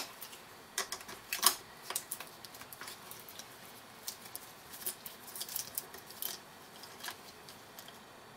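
Scattered light clicks and ticks of a small socket driver and small metal parts being handled while a tiny nut is undone on the back of an alternator, the loudest about a second and a half in.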